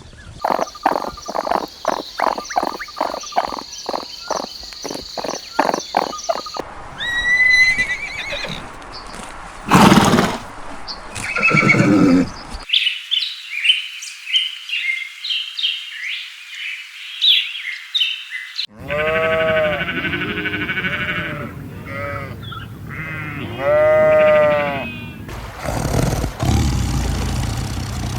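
Farm animals calling in a series of short clips cut together, the kind of call changing every few seconds: a fast run of repeated calls first, then high chirping, then drawn-out calls that bend in pitch.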